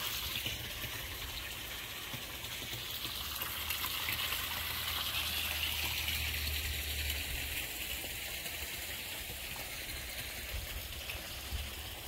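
Hot tub waterfall spilling steadily into the tub, with the jets churning the water: a continuous splashing rush.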